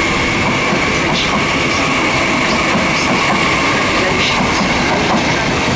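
Frecciarossa ETR1000 high-speed electric train rolling slowly out of the station: a steady rolling rumble under a steady high-pitched whine, with faint wheel clicks over the rail joints about once a second.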